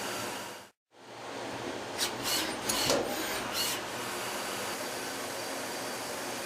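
CNC Swiss-type lathe running with a steady mechanical hum. The sound drops out briefly near the start, then a few short rasping, scraping bursts come between about two and four seconds in.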